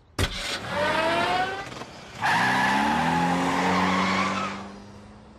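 Cartoon car sound effect: a click, then the engine revving up in rising pitch, then a long loud tyre screech as the car speeds off, fading out near the end.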